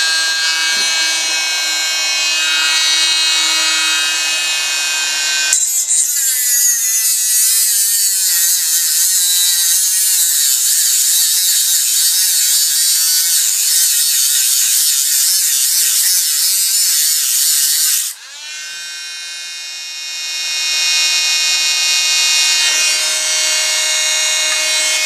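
Dremel rotary tool with a cutting disc: a steady high motor whine, then from about five seconds in a louder, rougher cutting sound as the disc bites into the camera's plastic thread, its pitch wavering under load. Near the end of the cut the sound drops off suddenly and then winds back up to the steady whine, a stumble the owner takes as the tool sounding like it is going to pack up.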